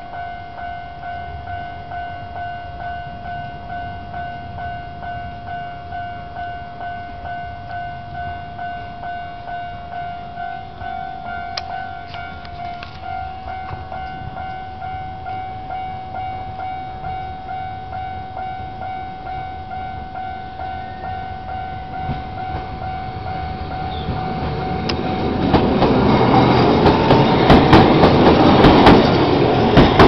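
Tokyu Setagaya Line level-crossing warning bell ringing steadily, a pitched tone repeating about twice a second, while the crossing is closed for a train. From about 22 seconds in, a train's rumble builds and grows loud near the end, with a few sharp clanks.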